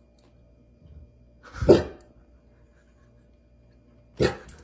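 Saint Bernard giving one loud, deep bark about two seconds in, then a short sharp sound near the end.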